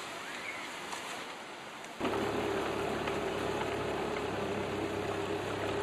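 A soft rush of surf and wind, then about two seconds in a boat's motor sets in suddenly, running steadily with a low hum over the sound of water.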